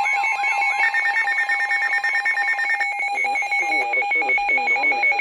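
Several electronic emergency alert tones sounding at once from a radio: steady and pulsing alert tones with a warbling siren-like tone that turns into rapid beeping about a second in. All of it cuts off suddenly just at the end.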